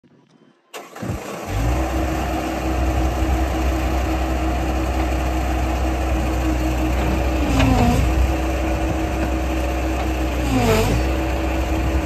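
Bobcat S185 skid steer's 61 hp diesel engine starting about a second in and then idling steadily, its speed dipping briefly twice near the end.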